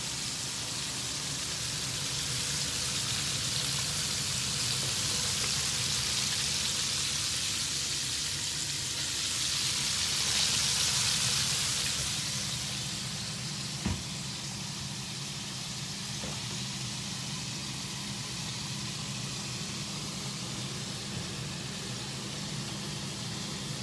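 Breaded chicken pieces frying in hot oil in a pan, a steady sizzle that grows louder for a few seconds near the middle and then settles back. A single short click about fourteen seconds in.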